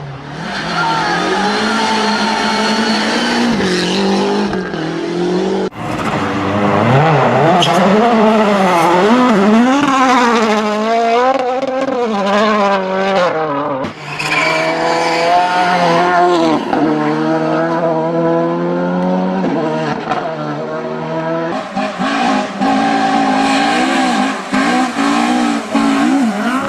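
Rally car engines at full throttle, revs rising and falling quickly through gear changes and lifts. The sound changes abruptly about six seconds in and again about fourteen seconds in, as one car gives way to another.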